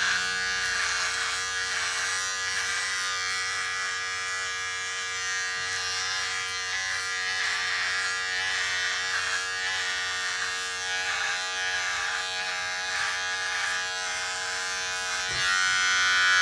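Electric razor running with a steady buzz and a rough, shifting rasp over it, a little louder in the last second.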